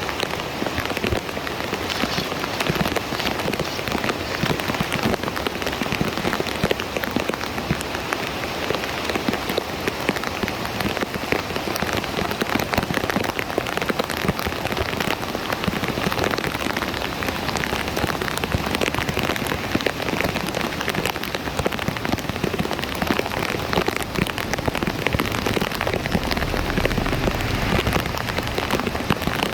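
Heavy rain falling steadily, a dense patter of drops on wet ground and water.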